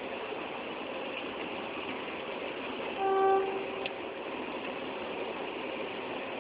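A train horn gives one short toot about three seconds in, over steady engine noise.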